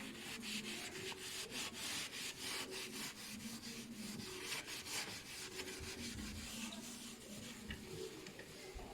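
A wet sponge loaded with fireplace ash rubbed back and forth over sooty fireplace glass in quick repeated strokes, working the alkaline ash paste into the soot to soften it.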